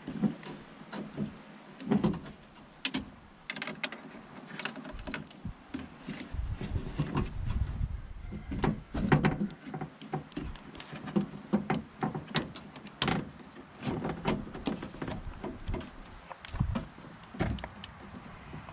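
Irregular clicks, knocks and rattles of metal parts and tools being handled inside an open car door during reassembly.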